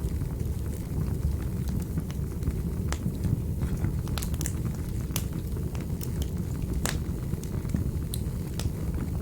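Wood fire burning in a fireplace: a steady low rumble of the flames with irregular sharp crackles and pops, one of the loudest near the end.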